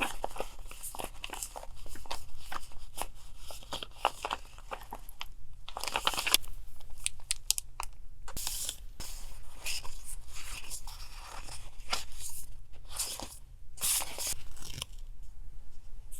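Paper and packaging being handled close up: a steady run of rustling, crinkling and tearing with short sharp crackles. A faint steady low hum runs beneath, from a refrigerator near the desk.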